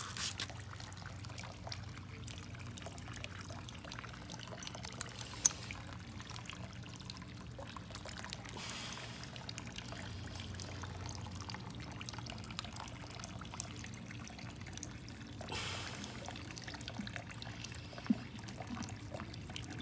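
Faint steady sound of running, trickling water over a low steady hum, with a single sharp click about five and a half seconds in.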